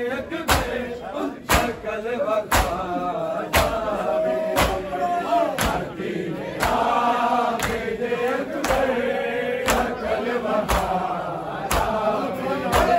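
Men chanting a noha, a Shia lament, while the crowd beats their bare chests in unison (matam), a sharp slap about once a second keeping the beat.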